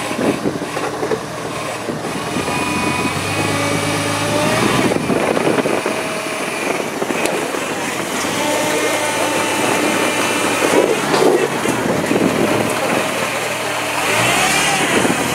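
Rock crawler buggy's engine working under load as it climbs a steep rock face. It is held at steady revs for stretches, with a few knocks, and near the end is revved up and let back down twice.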